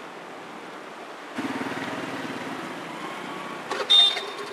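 Street traffic in floodwater: steady noise for the first second and a half, then a vehicle engine running close by. About four seconds in, a short, loud horn honk.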